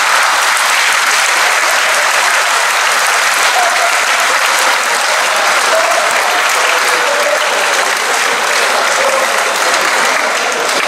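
A large audience applauding steadily, the clapping easing slightly near the end.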